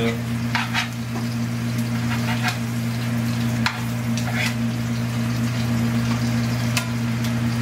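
Bone-in ribeye sizzling in hot fat and garlic in an aluminium skillet, a steady frying crackle over a constant low hum. A few brief sharp scrapes and clicks come from the tongs working against the steak and pan.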